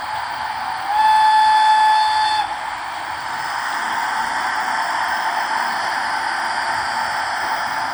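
Sound module of a ROCO model of the DB class E 44 electric locomotive (144 507-1) playing through its loudspeakers: a steady hissing running sound, with a single steady whistle blast of about a second and a half about a second in.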